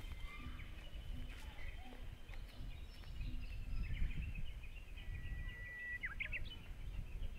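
Small birds chirping and singing over a low, uneven rumble. About five seconds in, one bird holds a long steady whistled note that breaks into a quick warbling flourish.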